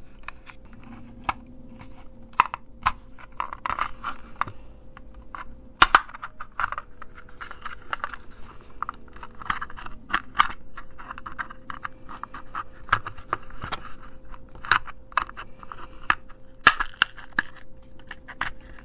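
Plastic opening tool prying at the seams of a cheap optical mouse's plastic shell: irregular clicks, creaks and scraping as the case's snap clips are worked loose, with a few sharper snaps.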